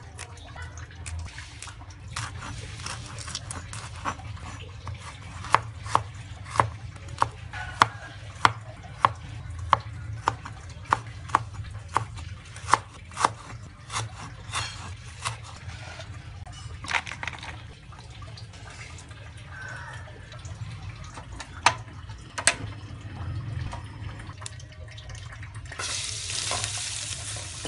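A kitchen knife chopping lemongrass on a wooden cutting board, a run of sharp strikes at about one and a half a second, then a few scattered cuts. Near the end a steady hiss rises as chopped vegetables are tipped into a steel wok.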